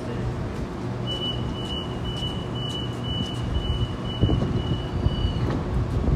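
Electric passenger train's door-closing warning: a string of high beeps for about four seconds while the yellow sliding doors close, shutting with a thud a little past halfway. Under it runs the steady low hum of the standing train.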